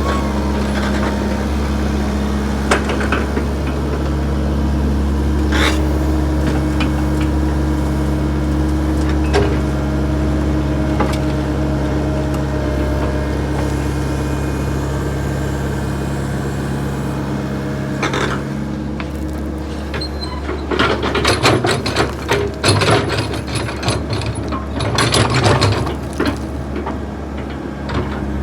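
Backhoe engine running steadily, with occasional single knocks; about twenty seconds in, a stretch of rattling and clanking sets in over the engine.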